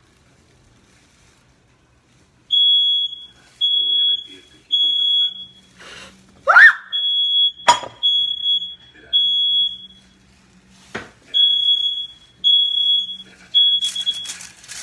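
Smoke alarm going off a couple of seconds in, sounding a high beep in repeated groups of three with a short pause after each group: the temporal-three fire-alarm pattern, set off by smoke from a fire lit indoors. A short rising squeal and a couple of sharp knocks come in between.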